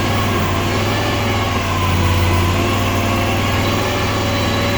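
Mini skid steer's engine running steadily while the track drives are worked, swelling a little about two seconds in. The right track is weak going forward, a fault the owner puts down to the control spool valve.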